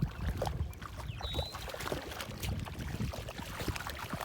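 Lake water sloshing and splashing in the shallows, with uneven low rumbling and small clicks, and one brief high chirp about a second in.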